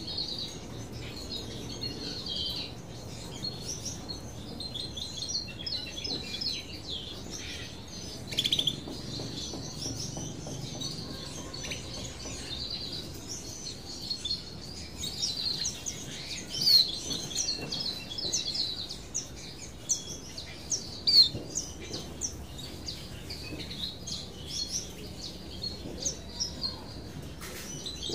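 Small finches chirping: a steady run of many short, high twittering calls, a few of them louder around the middle.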